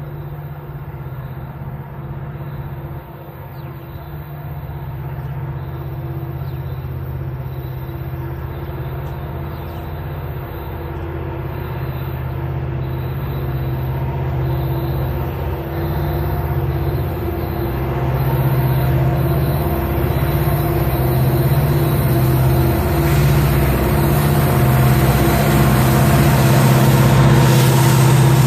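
Diesel-electric freight locomotives approaching on a main line, their engines running with a steady low drone that grows gradually louder as the train nears.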